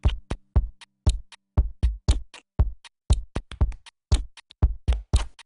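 Background music: a fast electronic drum-machine beat, with the drums almost alone.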